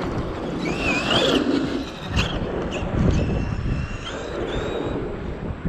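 Traxxas X-Maxx 8S RC monster truck's brushless motor whining and rising in pitch as it is floored, with the wheels spinning on loose, slick clay without grabbing traction. A couple of sharp knocks come a little over two seconds in.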